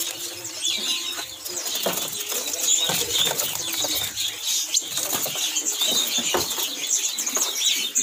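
Many caged birds calling at once: a dense chorus of short, high chirps and twitters, mixed with brief fluttering of wings.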